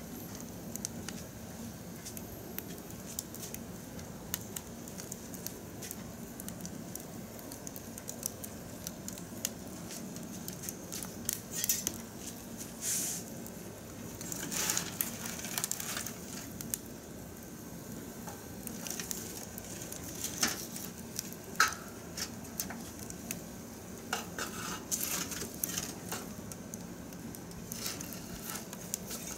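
Wood fire crackling in a steel drum, with metal tongs clinking and scraping against the drum and logs several times from about a third of the way in.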